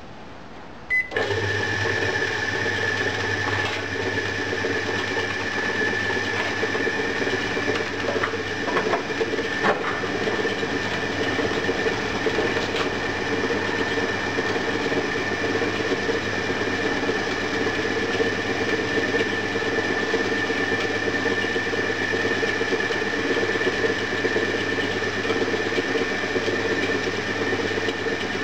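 Homemade foundry sand mixer, driven by a washing-machine motor, switching on about a second in and then running steadily, a constant motor hum and whine with the turning pan churning the sand as water is mixed into a fresh batch.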